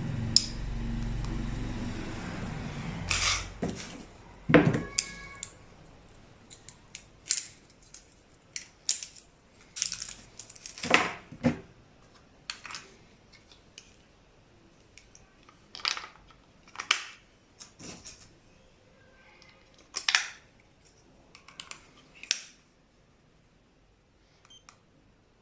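Handling noise from a plastic laser distance meter being turned over in the hands: a low rubbing at first, then a string of sharp plastic clicks and taps at uneven intervals, stopping shortly before the end.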